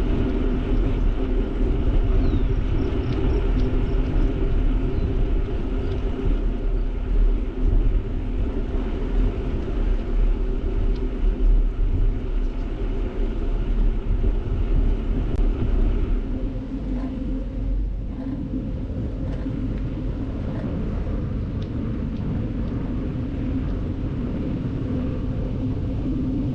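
Wind buffeting the microphone and bicycle tyres rolling on the trail while riding, a steady low rumble that eases and evens out about two-thirds of the way through.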